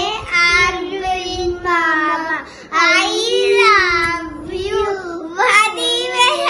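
A young boy singing, with long held notes that bend in pitch.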